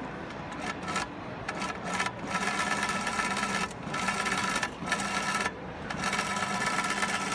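Industrial double-side blind stitch sewing machine stitching cashmere, its needle mechanism running in short bursts at first, then in longer runs with brief stops as the fabric is guided through. A steady low hum continues underneath.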